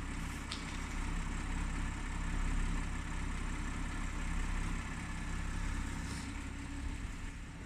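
Audi A6 2.8 CHVA V6 petrol engine idling steadily while nearly warmed up. Practically no ticking can be heard now; the owner's ticking shows up only while the engine is cold and fades as it warms.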